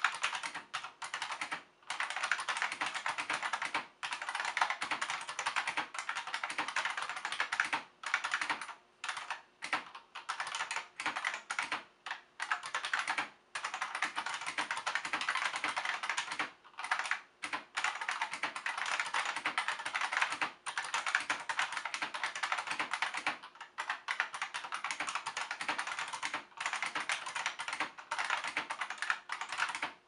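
Fast, continuous typing on a Unicomp UltraClassic buckling-spring keyboard: a dense stream of clicky keystrokes, broken now and then by brief pauses.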